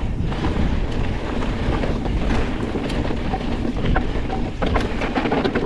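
Pivot Switchblade full-suspension mountain bike riding fast down a dirt trail: tyres rolling over the ground and wind rushing over the microphone, with scattered clicks and rattles from the bike.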